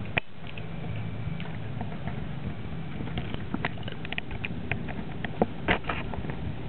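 Siberian husky gnawing a lamb bone: irregular sharp clicks and crunches of teeth on bone, a few louder ones in the second half, over a low steady hum.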